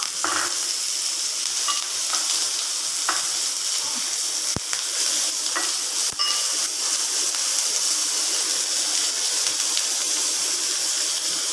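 Chopped onion and curry leaves sizzling steadily in hot oil in a pan as they start to sauté. Two sharp taps come about halfway through.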